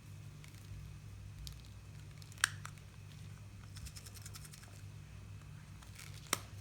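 Small plastic toy parts being handled: faint taps and a quick run of ticks, with two sharper clicks, over a low steady hum.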